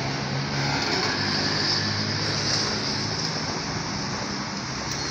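Street traffic: a car's engine and tyres as it drives past, over a steady hum of road noise.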